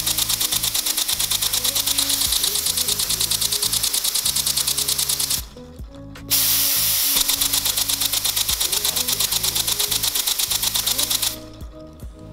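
3D-printed single-cylinder compressed-air engine spinning a propeller at 60 psi, exhausting in rapid, regular puffs of hissing air with a fast mechanical clatter. It stops for about a second just after the middle, runs again, then stops about a second before the end. Background music plays underneath.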